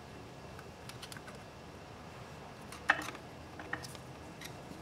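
Faint small metallic clicks of a steel retaining ring being pushed by hand into the slots of a Harley Sportster clutch's fingers. One sharper click comes about three seconds in.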